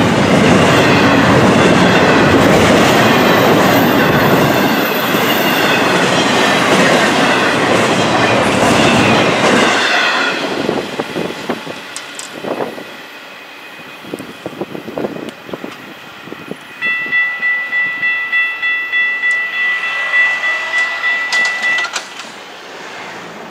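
A Florida East Coast Railway intermodal freight train's double-stack container well cars rolling past close by; the sound drops away about ten seconds in as the last car clears, leaving faint knocking. Later, for about five seconds, a steady-pitched tone pulses about twice a second, then stops.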